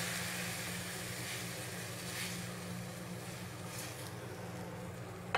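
White wine sizzling as it hits a hot stainless sauté pan of vegetables over high heat, a steady hiss that slowly dies down, over a low steady hum.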